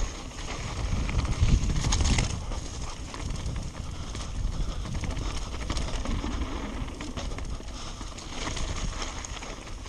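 Mountain bike rolling fast down a dirt and gravel trail: tyres crunching over stones, with scattered clicks and rattles from the bike as it goes over bumps, and a low rumble of wind or bumps on the mounted camera.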